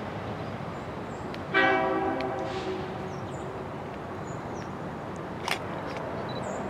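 Diesel locomotive horn giving one short blast about a second and a half in, over the low steady rumble of the train moving off. Birds chirp faintly, and there is a single sharp tick near the end.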